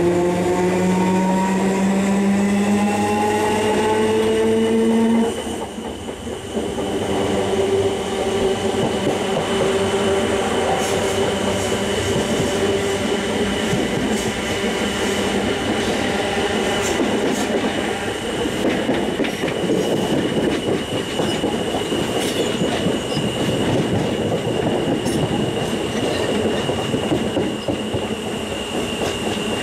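Class 317 electric multiple unit's GEC G315BZ DC traction motors whining and rising in pitch as the train accelerates away. The whine breaks off suddenly about five seconds in. A steadier motor tone then carries on over wheel and rail noise, with scattered clicks over the track.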